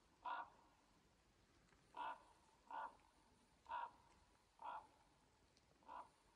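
A crow cawing: a series of six short, faint calls, spaced about one to one and a half seconds apart.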